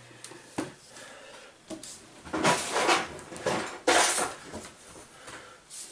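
Hands handling a plastic toy cash register on a bench: an irregular string of knocks and clatters of hollow plastic, with two louder clatters in the middle.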